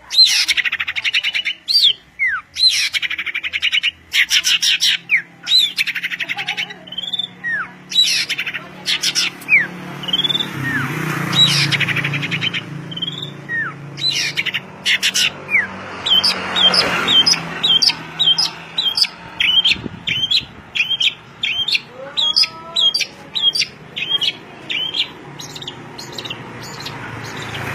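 Songbird singing without pause: fast rattling trills, chirps and short rising whistles, then, in the second half, a run of quick repeated notes about two to three a second. A faint low hum sits under the song in the middle.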